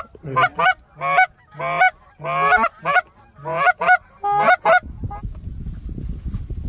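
Goose honking: a run of about seven loud honks in quick succession, stopping about five seconds in, followed by a steady low noise.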